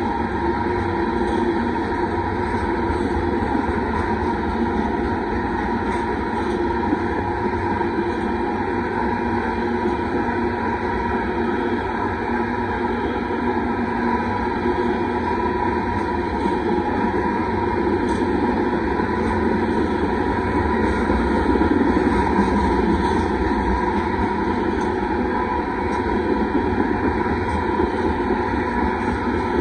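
Freight train of tank cars rolling past at a steady pace: a continuous rumble of steel wheels on the rails, swelling slightly a little past the middle.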